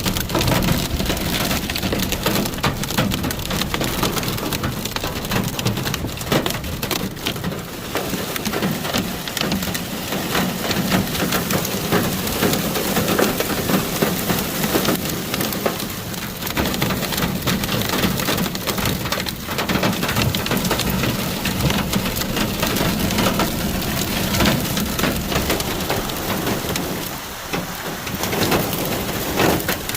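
Heavy rain mixed with hail striking a hard surface: a dense, steady patter with many sharp individual clicks of hailstones.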